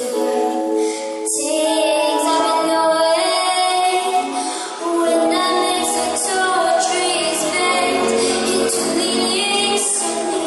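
A girl singing into a handheld microphone, amplified, over instrumental backing music; a low bass line comes in about halfway through.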